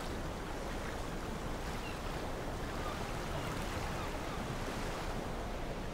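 Open-sea ambience: calm water washing and lapping with a little wind, a steady even hiss with no distinct events.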